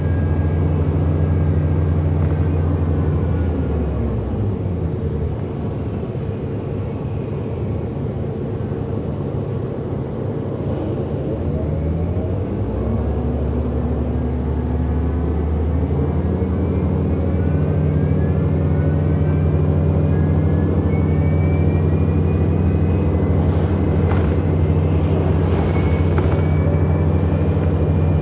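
Diesel-electric hybrid drive of a 2008 Orion NG city bus heard on board: a steady low hum with a motor whine that falls in pitch as the bus slows a few seconds in, then rises again as it pulls away around the middle and climbs once more later on. This whine is the title's "weird motor sound".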